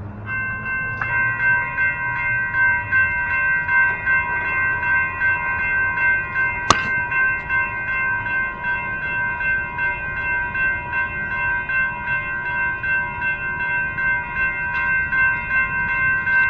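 Electronic railroad crossing bells start ringing together as the crossing activates, one starting a moment after the other, then ringing on steadily. There is one sharp click partway through.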